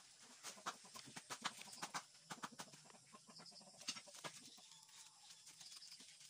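Taro leaves and stems crackling and snapping as hands tear them apart over a plastic colander, a busy run of short, sharp crackles that thins out after about four seconds.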